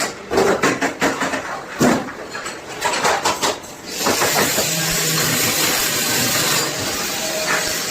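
A run of sharp knocks and clatter, then about four seconds in a loud, steady hiss of compressed air starts suddenly and holds.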